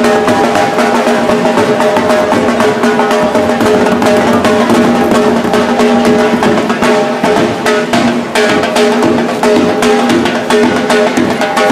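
Dhol drum beaten in a fast, steady rhythm, over a sustained droning tone from another instrument.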